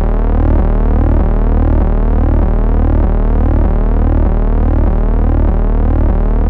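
Electronic background music: a loud, steady synthesizer drone with a deep low tone and gliding notes that repeat evenly above it.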